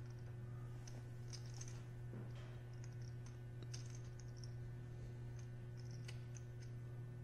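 Faint, irregular clicking of poker chips being handled at the table, over a steady low hum.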